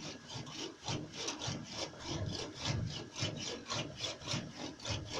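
Hand sawing through car body sheet metal, in quick, even back-and-forth strokes.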